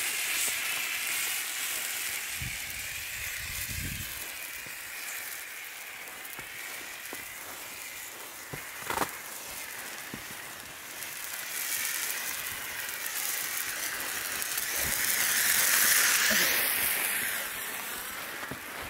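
Hand-held red flare burning with a steady hiss that wavers as it is moved and swells louder about sixteen seconds in. A sharp knock comes about nine seconds in.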